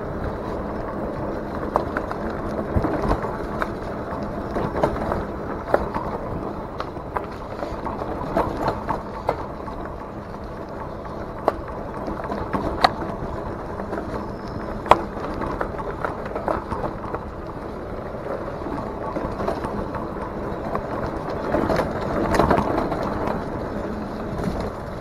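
Fat-tyre e-bike riding over a dirt trail: steady tyre and ride noise with frequent sharp knocks and rattles as the bike and its handlebar camera mount jolt over bumps. The noise swells briefly about three seconds before the end.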